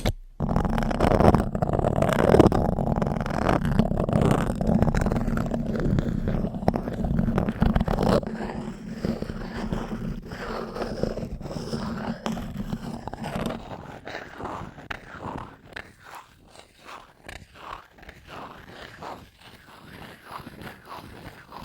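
A spoon scraping across a microphone in dense, continuous strokes, with a heavy low rumble. After about thirteen seconds the scraping turns lighter and sparser, in separate quieter strokes.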